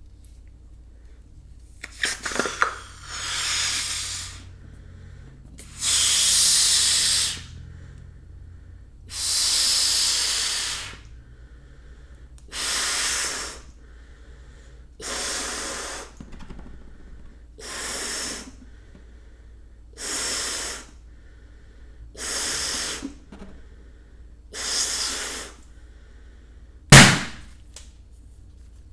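Rubber balloon being blown up by mouth: nine puffs of breath, each a rushing blow of about a second, repeated every two to three seconds, after a few handling clicks. Near the end comes one sharp, loud snap.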